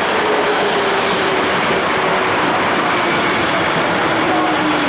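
Osaka Metro Midosuji Line subway train pulling into the station: steady wheel and running noise, with a motor whine falling slowly in pitch as the train brakes.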